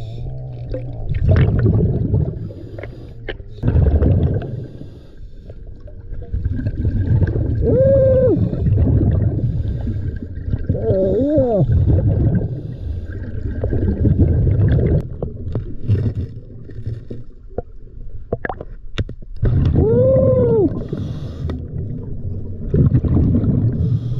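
Scuba diver breathing through a regulator underwater: rushing, bubbling exhalations every few seconds, with a few squeaky tones that rise and fall over about a second. A few sharp clicks a little before the end.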